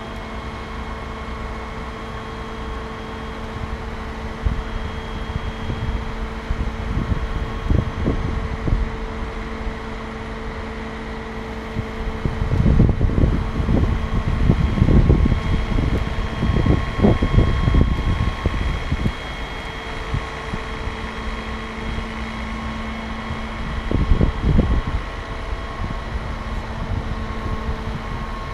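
Aerial ladder fire truck's machinery humming steadily with a few fixed tones, while wind gusts buffet the microphone in rumbling bursts, strongest through the middle.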